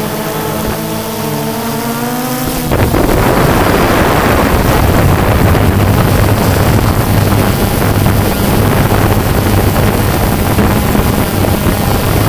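Multirotor drone's motors and propellers heard through its onboard camera: a buzzing whine that rises slightly in pitch. About three seconds in, it turns into a louder, rougher rushing noise over a steady low hum.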